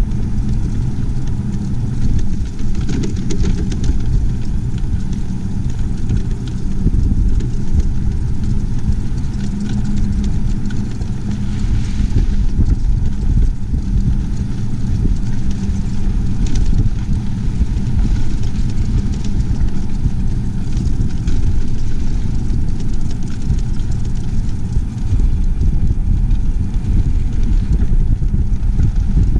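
Steady low rumble of a motor vehicle on the move, an engine and road noise.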